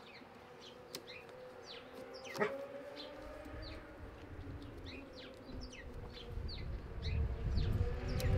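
Backyard ambience: birds chirping over and over in short, falling calls, over a steady faint drone. A couple of small clicks come from handling a hose fitting, and a low rumble builds over the last few seconds.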